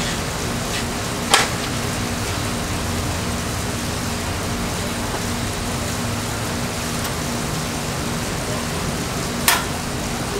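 Two sharp clicks, about a second in and again near the end, from the igniter and knobs of a built-in gas grill being lit, over a steady hum and hiss.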